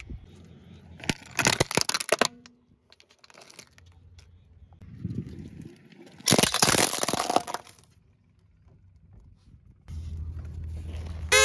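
Hard plastic toys cracking and crunching under a car tyre as it rolls over them, in two bursts of crackling about one second and six seconds in.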